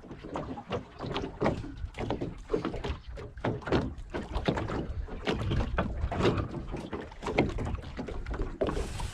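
A small boat at sea: water slapping against the hull, with irregular knocks and bumps of the boat and its gear, over a low rumble.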